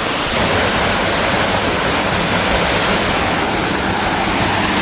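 Steady, loud rush of water from a waterfall and rocky stream.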